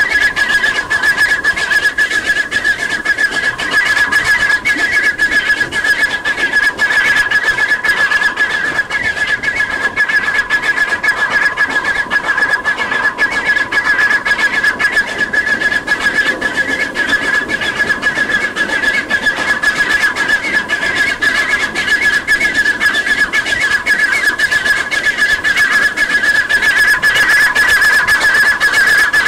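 Narrow-gauge 2-6-2T steam tank locomotive working hard up a steep climb, heard from a coach behind it, with a steady high-pitched squeal over continuous rushing, clattering noise.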